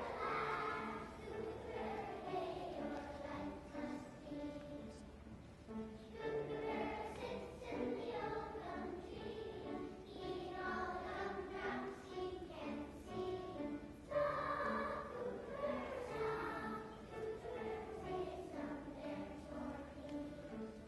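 A choir of young children singing a song.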